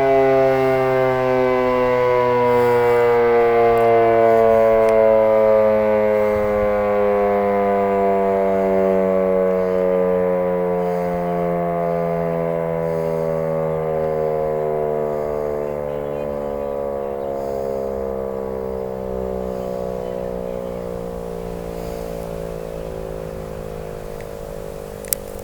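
Fedelcode Model 5A three-phase rotating siren winding down: its wail slides slowly lower in pitch and fades steadily as the rotor coasts after the power is cut. A brief click comes near the end.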